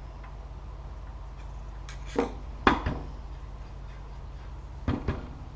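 A few light knocks and clacks from the insert plate and tools being handled on the table saw's top while it is adjusted, over a steady low hum: two about two seconds in, and a quick pair near the end.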